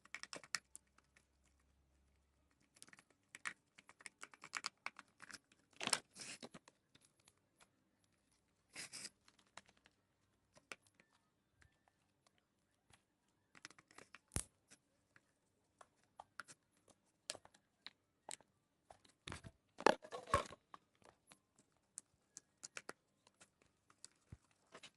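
A spoon stirring a thick glue and hand-soap slime mixture in a bowl: scattered short clicks and scrapes, with louder bursts about six, nine and twenty seconds in.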